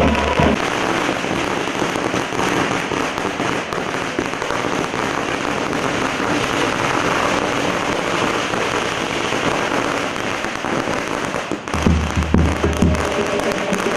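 A long string of firecrackers going off: a dense, rapid crackle of small bangs with no pause between them. About twelve seconds in, a deep drumbeat joins in.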